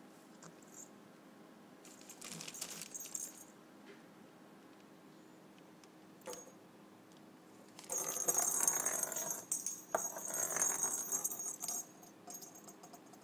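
Small bell inside a perforated plastic cat toy ball jingling as a cat bats it around. There is a short bout of jingling about two seconds in and a longer, louder one from about eight to twelve seconds in.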